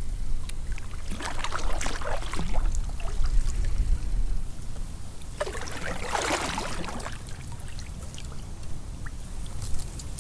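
Water splashing and sloshing against a kayak, swelling twice, with wind rumbling on the microphone through the first half.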